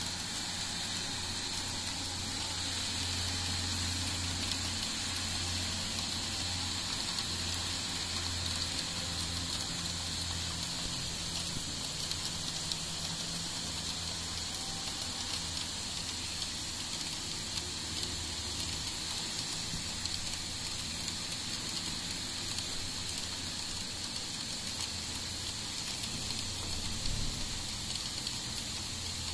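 Heavy downpour: a steady hiss of rain falling on ground, roofs and trees, with a low rumble underneath that swells and fades.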